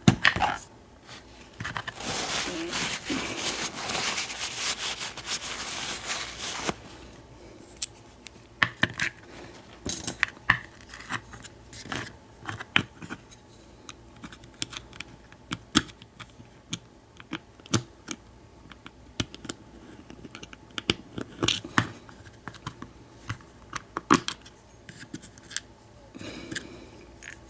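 American Lock 1100-series padlock being handled and taken apart over a pinning tray: scattered small metal clicks and taps. A few seconds of steady scraping sound comes about two seconds in.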